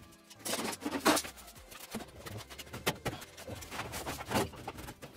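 Galvanized sheet-metal ductwork being handled: irregular knocks and rattles, with a few sharper metallic clanks, the loudest about a second in and again near the end.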